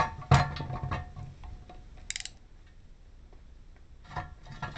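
Half-inch drive ratchet clicking as it tightens a 1/2-13 bolt, with a dense run of clicks in the first second and two shorter runs near the end.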